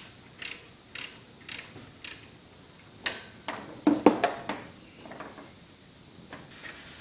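A 3/8-drive ratchet with a 13 mm socket clicks in short bursts about twice a second as it backs off an idler pulley's mounting nut. About three to four seconds in come a few louder metallic clanks of the tool being handled, the loudest sounds here.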